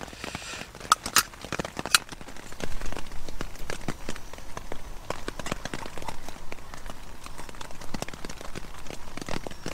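A few metal clinks about one and two seconds in as the brass Trangia spirit burner and its pot stand are handled and set down, then a steady, irregular patter of rain drops on the tent fabric.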